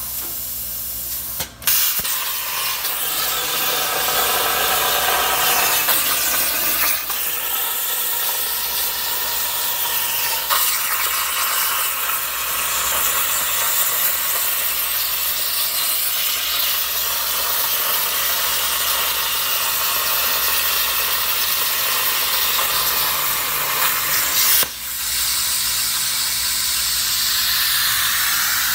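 Plasma cutter torch on a Crossfire Pro CNC table cutting metal plate: the steady, loud hiss of the air plasma arc. It starts abruptly about a second and a half in and is broken by a sharp snap about 25 seconds in.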